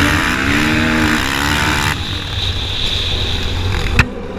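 Dirt bike engine revving up and down while riding, heard through a helmet-mounted camera with rushing noise over it. A single sharp knock about four seconds in, after which the sound drops for a moment.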